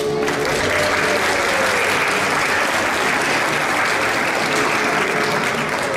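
Audience applauding steadily, the clapping starting suddenly.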